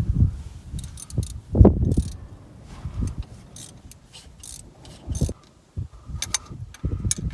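Irregular metal clinks and knocks from hand tools and parts being handled in an engine bay. The heaviest knock comes about two seconds in, with more clatter near the end.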